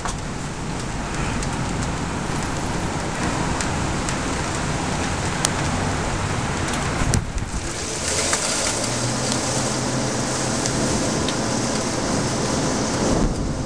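Heavy rain pouring down steadily. It grows heavier and hissier for about five seconds in the second half, then eases suddenly near the end.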